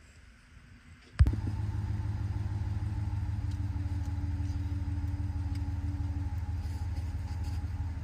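An engine kicks in suddenly with a sharp clank about a second in and then runs steadily with an even low pulse, during a jump-start of a Timberjack 230 skidder off a pickup truck.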